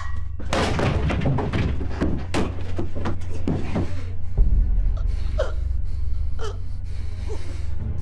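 A struggle: a run of thumps and knocks, with a woman gasping and letting out short falling cries, and one heavy low thud about four and a half seconds in, all over a low steady drone.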